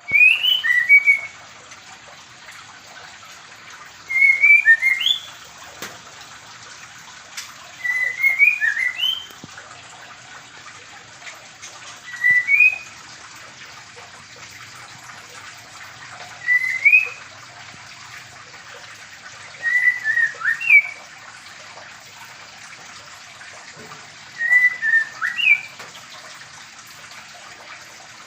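White-rumped shama giving short whistled phrases, seven of them about four seconds apart, over a steady background hiss.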